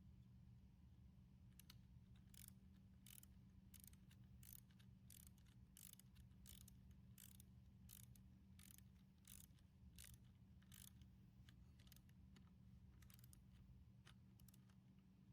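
Faint ratchet wrench clicking in a steady rhythm, about one and a half strokes a second, over a low steady hum; it starts a second or two in and stops near the end.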